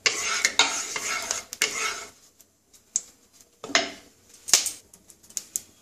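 Wooden spatula scraping around the bottom of a nonstick kadai, spreading heating mustard oil for about two seconds, followed by a few light sharp knocks of the spatula against the pan.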